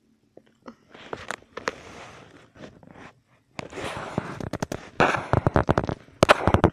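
Handling noise: a phone's microphone rubbing and scraping against a dog's fur and a blanket, a rough crackling full of sharp clicks that begins about a second in and grows louder and denser in the second half.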